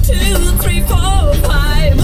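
A song playing: a sung melody over heavy bass.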